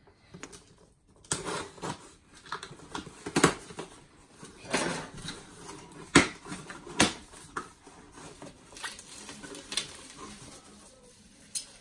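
Small cardboard shipping box being opened by hand: packing tape torn and the flaps pulled open and handled. It makes an irregular string of rips, scrapes and rustles, with several sharp cracks.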